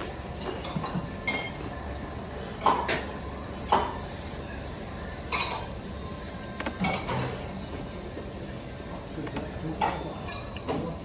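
Dishes and tableware clinking and knocking, about six sharp ones scattered over several seconds, over a steady low background hum.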